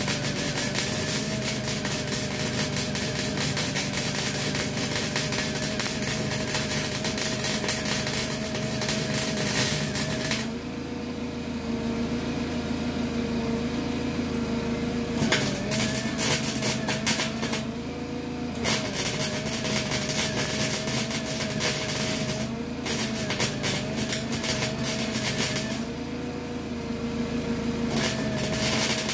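Small 120-volt welder's arc crackling in runs of a few seconds while tack-welding rusty sheet metal, turned down to about 3 so it does not melt through the rust. The arc stops for a few seconds about a third of the way in and several more times, with a steady hum underneath.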